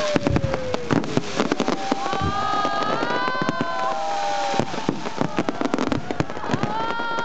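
Firecrackers going off in rapid succession: a dense crackle of sharp bangs, overlapped by several long, sliding, whistle-like tones.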